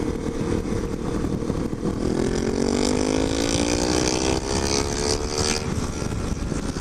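Motorcycle engine with an aftermarket 'flauta' exhaust accelerating through a gear while riding: about two seconds in, its note rises steadily for some three and a half seconds, then drops away. Steady wind and road noise run underneath.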